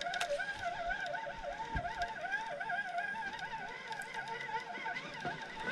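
Fishing reel being cranked, a steady wavering whine as a hooked zander of about two kilos is reeled in toward the boat.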